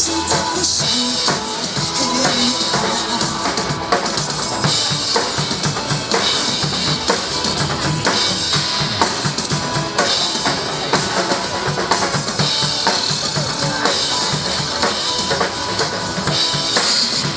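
Drum kit played fast along with backing music: dense kick and snare hits under a recurring cymbal wash that swells every few seconds.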